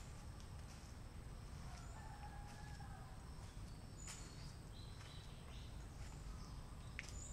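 Outdoor ambience: a steady low rumble with faint distant bird calls, including a longer drawn-out call about two seconds in and a few brief high chirps later.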